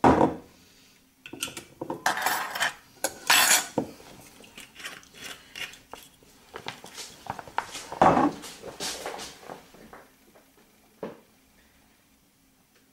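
Metal measuring spoons on a ring clinking and rattling against a saucepan as they are handled and hung on its rim, in several clattering bursts with a last single clink near the end.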